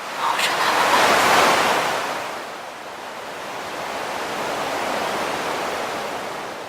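Ocean waves on a shore: a wave breaks and surges in, loudest just over a second in, then washes back, and a gentler second wave swells about five seconds in.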